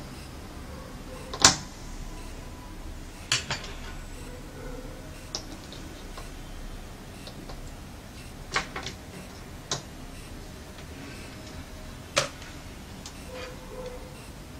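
About eight scattered sharp clicks and taps, the loudest a little over a second in. They come from test leads, alligator clips and a small screwdriver being handled and set down on a desk.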